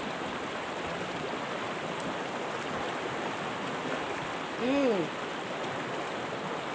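River water rushing steadily over rocks. A short rising-and-falling voice sounds once, about two-thirds of the way through.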